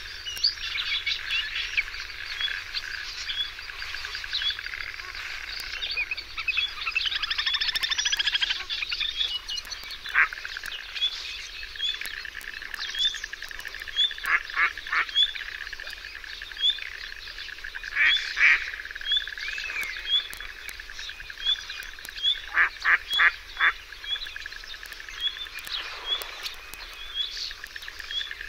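Wetland chorus of birds and frogs: a steady high drone, a short high chirp repeating about once a second, and several quick series of loud duck-like calls.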